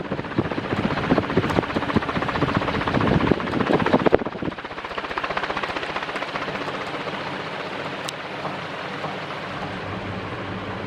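CMC 48-inch industrial ceiling fan running, its blades pushing air that buffets with a rapid choppy flutter; about four seconds in it drops abruptly to a steadier, quieter whir with a faint motor hum underneath.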